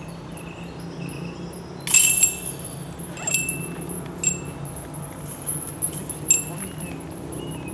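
Chains of a disc golf basket jingling as a disc strikes them, loudest about two seconds in, followed by several lighter metallic clinks.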